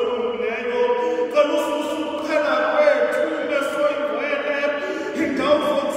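Voices singing a hymn together, with long held notes that change pitch every second or so.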